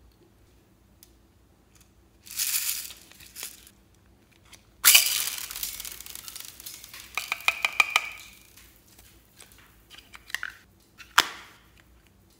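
Hands handling a pink plastic clamshell case: a few bursts of crackling, rustling handling noise with clicks, and a sharp plastic snap near the end as the case is shut.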